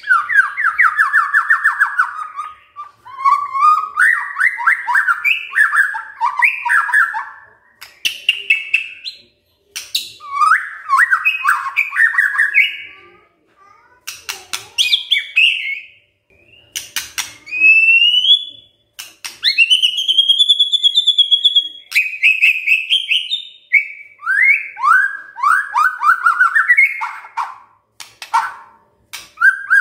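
White-rumped shama singing a long run of varied phrases: fast strings of repeated notes, clear rising and arching whistles, and sharp clicks, with short pauses between phrases.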